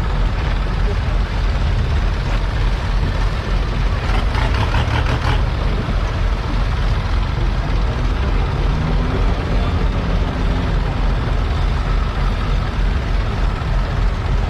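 Loud, steady rumbling noise of storm wind buffeting the microphone.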